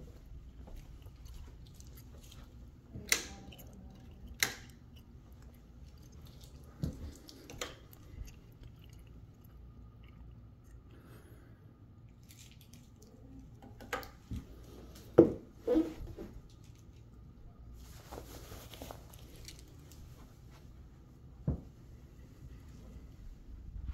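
Quiet room tone broken by scattered, irregular knocks and clicks, the loudest about fifteen seconds in. These are the handling and footstep noises of someone walking through empty rooms with a handheld phone camera.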